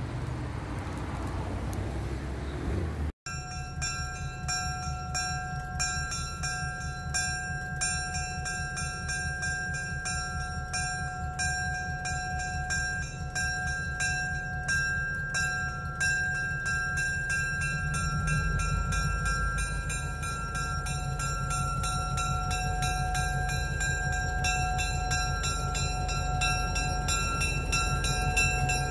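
A diesel locomotive's bell rings steadily with evenly repeated strikes as the locomotive rolls slowly toward the listener. Its engine rumble grows louder over the last ten seconds. The first three seconds are passing road traffic, which cuts off abruptly.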